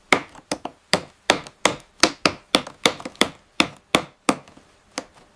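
A quick, uneven run of sharp woody knocks, about four a second, thinning out near the end.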